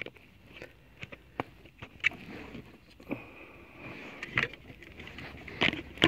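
Scattered light clicks and taps of hands handling plastic car interior trim, with a faint steady high tone partway through.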